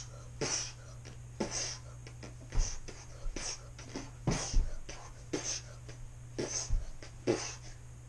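A boy making fist-fight punch sound effects with his mouth: short, sharp breathy bursts about once a second, a few of them with a low thump.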